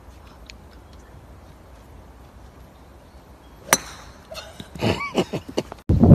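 Golf driver striking a ball off the tee: one sharp crack about three and a half seconds in, followed by a few short cries. Just before the end a sudden loud rush of noise begins.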